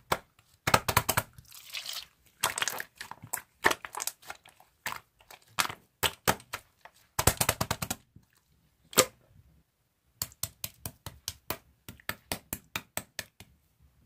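Slime being squished and pressed by hand, giving runs of sharp sticky clicks and pops as trapped air bursts. The clicks come in quick bunches, stop for about two seconds just past halfway apart from one loud pop, then run on at about four or five a second.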